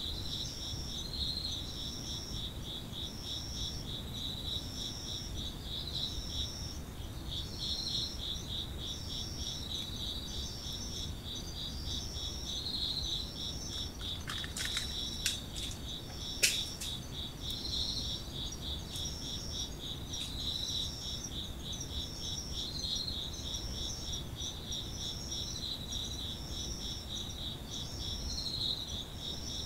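Japanese autumn insects chirping in chorus: a continuous fast trill, with a higher short call from another insect repeating about every second and a half. A few sharp clicks break in about halfway through.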